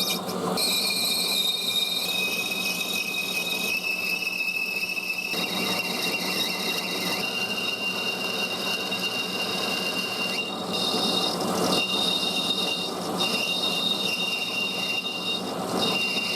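Metal lathe turning a brass bar, the cutting tool squealing steadily over the machine's running noise. The squeal's pitch steps up slightly a few times and drops out briefly several times in the second half as the cut lifts.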